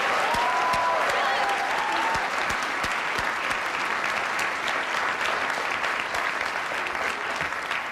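A large audience applauding with steady clapping that tails off near the end.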